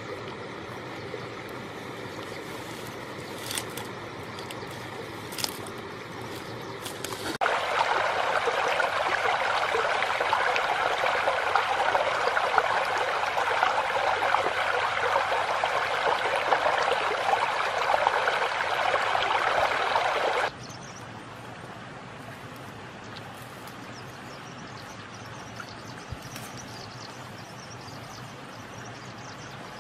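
Shallow stream running over stones: a steady rush of water that cuts in abruptly about seven seconds in and cuts off just as abruptly about twenty seconds in. Before and after it, a quieter background with a few faint clicks.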